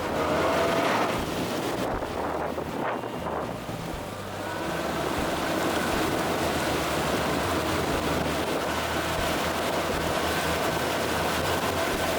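Center console boat under way on choppy water: the outboard motor runs at a steady pitch under water rushing and slapping at the hull, with strong wind buffeting the microphone.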